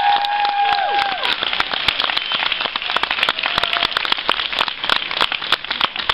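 Audience applauding with dense, irregular clapping. One person gives a long high-pitched cheer that ends about a second in.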